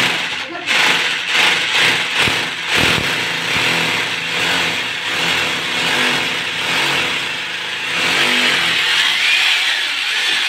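Corded electric drill running steadily as it bores into a wall, a loud continuous grinding whir.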